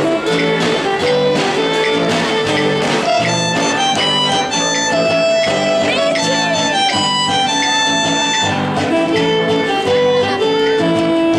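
Live band playing amplified music: acoustic and electric guitars and a keyboard under a lead melody of long held notes.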